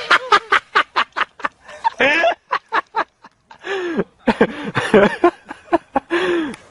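A person laughing in quick, short bursts, about seven a second, for the first few seconds, then more laughing and voice sounds from about halfway in.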